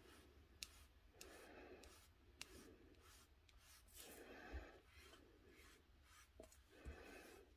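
Pigment ink pad swiped lightly over embossed cardstock, inking the raised lines: a few faint, soft rubbing strokes with the odd tiny click between them.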